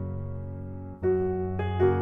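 Background piano music, soft and slow. A held chord fades away, then new notes are struck about a second in.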